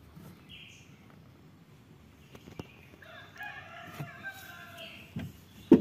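A rooster crowing once, faintly, about three seconds in, the call lasting about a second and a half. A sharp thump near the end is the loudest sound.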